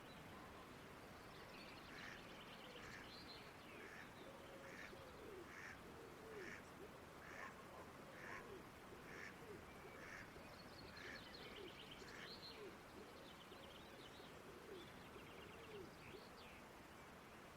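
Faint countryside ambience with birds calling over a steady background hiss: one bird repeats a short call about once a second for most of the stretch, while others add higher chirps and trills.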